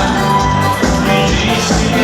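Music with a steady beat and sustained pitched notes.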